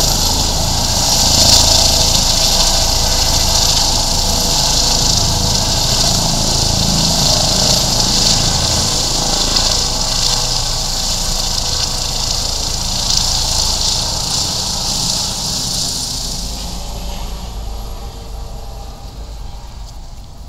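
Eurocopter EC 145 rescue helicopter climbing away after take-off: a steady turbine whine with the pulsing beat of the rotor, fading over the last few seconds as it flies off.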